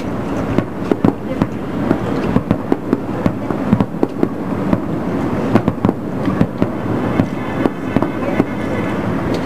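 Fireworks display: aerial shells bursting in irregular, rapid succession, several sharp bangs a second.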